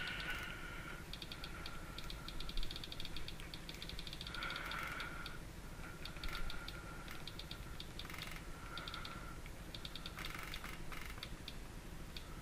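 iPod click wheel clicking as a thumb scrolls through a song list: bursts of rapid small ticks, several a second, stopping and starting in short runs.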